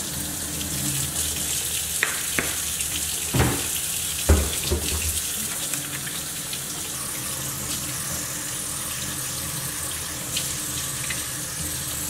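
Kitchen faucet running steadily into the sink, water splashing over a metal colander. A few short knocks from handling at the sink between about two and five seconds in, the loudest about four seconds in.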